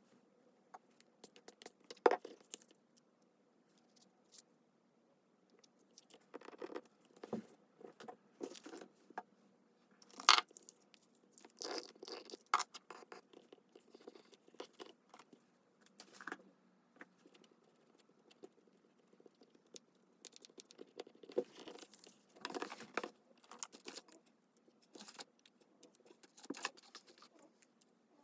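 Paper and card being handled for a junk journal: irregular rustles, scrapes and light tearing, with scattered sharp clicks and taps, two louder ones about 2 and 10 seconds in.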